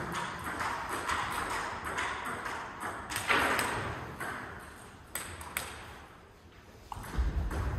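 Table tennis rally: the plastic ball clicks in quick succession off the paddles and the table, with one louder hit about three seconds in. Only a few clicks follow, and there is a low thump near the end.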